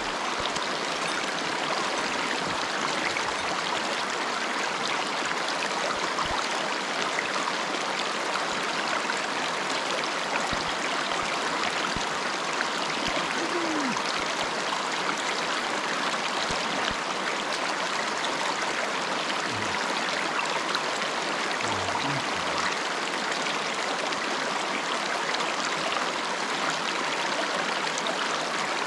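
Shallow mountain stream running over stones in a small riffle: a steady, even rush of water.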